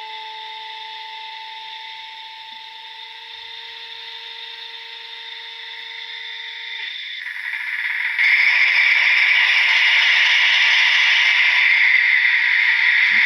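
HO-scale SNCF BB67000 diesel locomotive model with a DCC sound decoder: a steady faint whine, then about eight seconds in the decoder's diesel engine sound comes in loud and hissy through the model's small speaker and runs on steadily.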